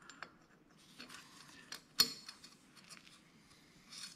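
Light metallic clicks and clinks of steel head bolts and flat washers being handled as they come out of a small diesel engine's cylinder head, with one sharp click about two seconds in.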